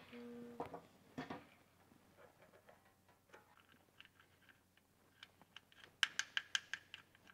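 Faint, light clicks and taps of a hand tool and a metal plug as the rear differential fill plug is refitted and done up. A quick run of about six sharp clicks comes near the end.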